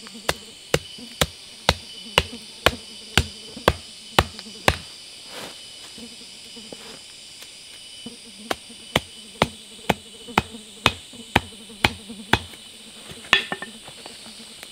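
Wooden stakes being pounded into the forest floor with hard, evenly spaced blows, about two a second: a run of about ten strikes, a pause of a few seconds, then a second run of about nine. A single, different knock comes near the end.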